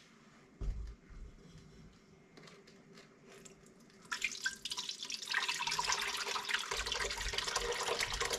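A soft low bump just under a second in, then from about four seconds in a thick, sugary jelly mixture pouring from a plastic bowl into a cooking pot, a steady splashing and gurgling.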